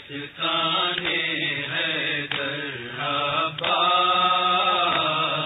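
A voice chanting a Muharram noha (lament) in long, drawn-out melodic lines.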